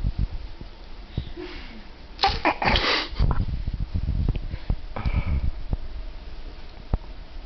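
Dachshund sniffing and snorting close to the microphone, with a loud burst of noisy, snuffly breath about two seconds in and a shorter one about five seconds in.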